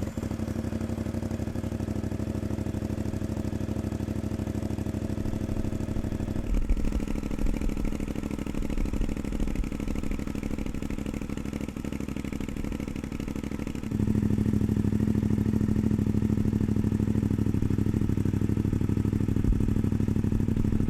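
CFMOTO 450MT parallel-twin engine idling, heard in three clips in a row: first with the stock slip-on exhaust, then a budget AliExpress slip-on from about six and a half seconds in, then a premium Sharon slip-on from about fourteen seconds in. The Sharon clip is louder and deeper.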